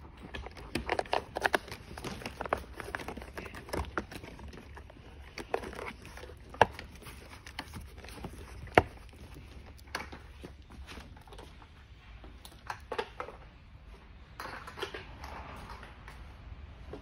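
Plastic wheel covers being pressed by hand onto the plastic wheels of a kids' electric ride-on quad bike: scattered light plastic clicks and knocks, with two sharper clicks about two seconds apart near the middle.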